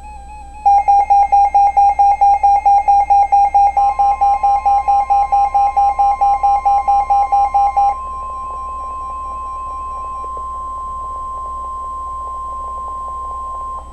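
A weather alert radio's loud beeping alarm, about five beeps a second, stops about eight seconds in. Under it, NOAA Weather Radio's steady warning alarm tone starts about four seconds in and holds to the end. The tone signals an incoming severe thunderstorm warning.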